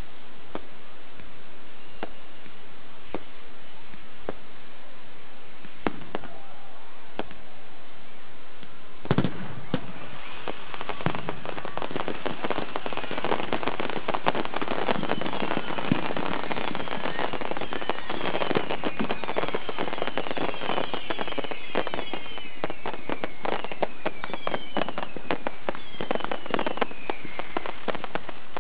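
Fireworks going off: a few scattered bangs, then about nine seconds in a whole stockpile of fireworks ignites at once. It becomes a dense, continuous crackle of bangs, with many whistles falling in pitch.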